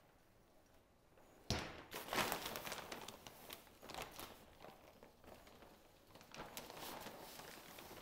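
Potting mix being added to a planter box from a plastic bag. A sudden rustle about a second and a half in, then several seconds of crinkling bag and loose soil rustling.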